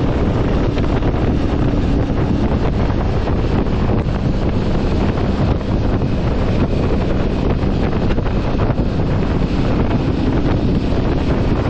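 Steady wind buffeting on the microphone while riding an Aprilia Tuareg 660 motorcycle. The parallel-twin engine's hum runs faintly underneath.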